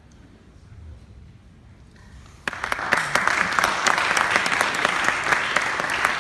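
Near quiet, then about two and a half seconds in an audience breaks into applause, many hands clapping steadily as a performer walks on stage.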